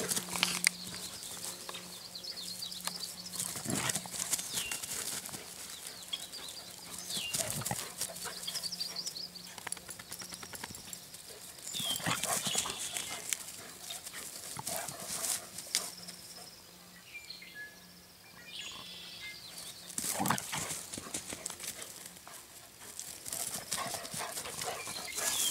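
A small dog and a large dog play-fighting on grass, with short outbursts of dog noise every few seconds over a faint steady hum.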